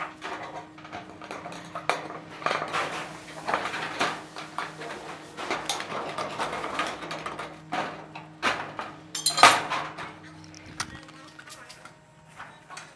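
Metal hand tools clinking and clattering as they are handled, with irregular rattles and knocks and a sharp clatter about nine and a half seconds in.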